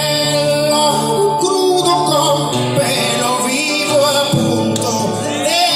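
A man singing to his own acoustic guitar in a live solo performance, with long held, gliding vocal notes over the guitar.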